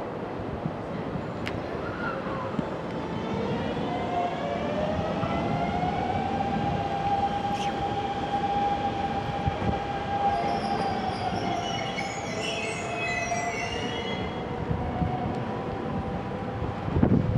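Hanshin 8000 series electric train running, with a whine that rises in pitch and then holds steady over the rail rumble. High-pitched wheel squeal comes in about halfway through, and a sudden loud burst of noise comes near the end.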